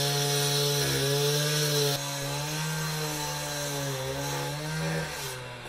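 Handheld disc cutter (cut-off saw) cutting concrete paving blocks: a steady motor note over the gritty noise of the disc grinding through the block. The sound becomes quieter and duller about two seconds in, and the motor note drops and fades near the end.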